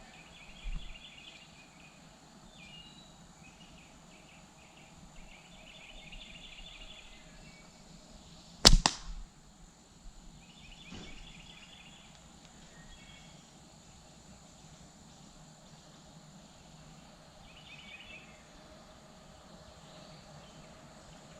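A slingshot shot: one loud, sharp crack a little before the middle, with a softer knock about a second in. Birds chirp in short repeated trills in the background.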